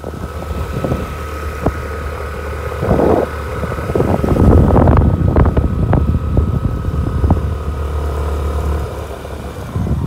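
Motorcycle engine running steadily while riding, with wind buffeting the microphone and scattered knocks and rattles, loudest about halfway through.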